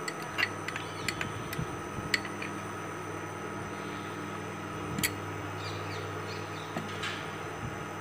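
Steady low electrical hum of a running appliance, with scattered light metallic clicks of a steel spoon against a stainless steel pan as ghee is spread and melted, most of them in the first two seconds and one sharper click about five seconds in.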